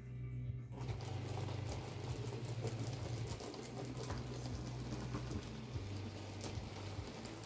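N-scale model freight train running along the track, its wheels rattling and clicking over the rail joints, over a steady low motor hum. The rattle gets louder about a second in.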